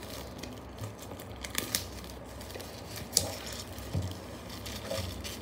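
Packaging crinkling and tearing as fingers work at the edges of a cardboard card-game box, with scattered light taps and scrapes from handling the box.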